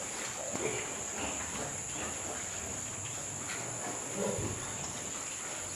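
Steady high-pitched chirring of insects, with a faint low grunt from a pig about four seconds in.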